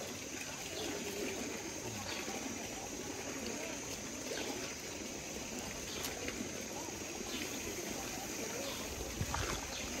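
Hot spring water trickling and flowing steadily over small cascades into the thermal pools, with faint voices mixed in.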